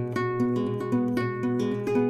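Background music: an acoustic guitar playing a run of picked, ringing notes.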